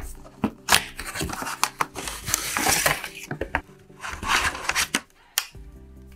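Cardboard and plastic packaging being handled and opened: scraping and rustling swishes as the inner box slides out, with sharp clicks and taps from the plastic tray holding the printer. Soft music comes in near the end.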